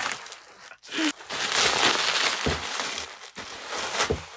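Plastic bubble wrap rustling and crinkling as it is pulled off a large framed plaque, with a few light knocks from the frame being handled.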